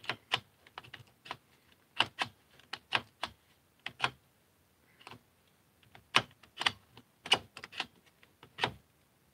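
Irregular sharp clicks and taps of a nut driver working the nuts and hardware of a Caliburn foam blaster as it is taken apart, coming in uneven little clusters.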